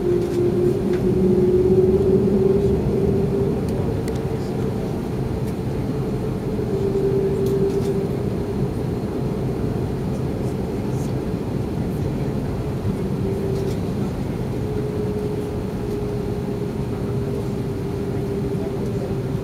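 Cabin noise of an Airbus A330-200 taxiing: a steady rumble with a droning hum that wavers slightly in pitch.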